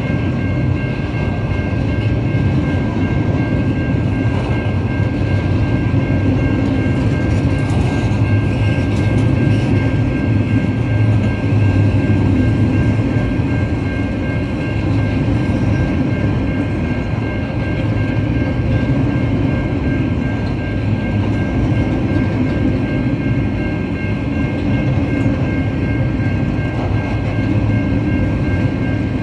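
A freight train's empty log wagons rolling past over a level crossing: a steady, continuous rumble of steel wheels on rail, swelling slightly about a third of the way through, with steady high-pitched tones running above it.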